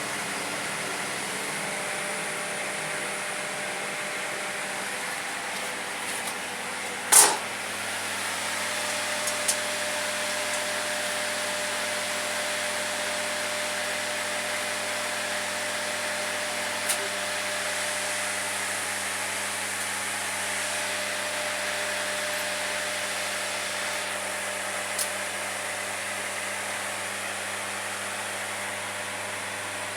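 Steady mechanical whir with a hum whose tone shifts about eight seconds in, broken by one sharp click about seven seconds in and a few faint ticks later.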